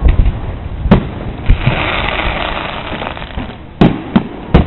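Aerial firework shells bursting: a sharp bang about a second in, a smaller one just after, then three quick bangs near the end, with a sustained hiss between them.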